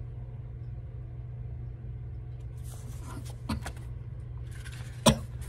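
Steady low hum of room background, with soft paper rustling in the second half and a sharp click about five seconds in as the paperback coloring book is handled.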